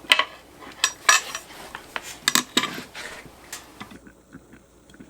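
Metal objects clinking and knocking together: several sharp, ringing clinks over about four seconds, then only faint small ticks.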